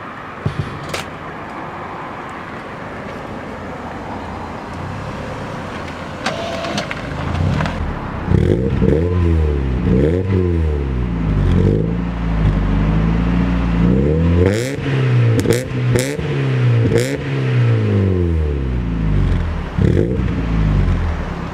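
Mazda MX-5's four-cylinder engine running, then from about eight seconds in revving up and dropping back again and again, rising and falling in pitch. It is running on four new spark plugs that appear to have cured its misfire.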